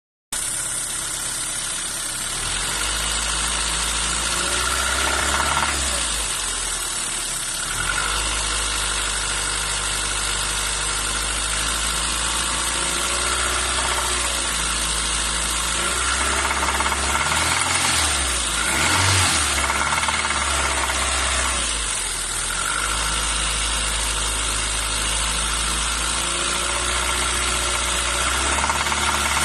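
Renault Twingo phase 2 engine idling from cold, a steady running sound with a low hum that shifts slightly every few seconds. This is the cold-engine noise the owner is recording.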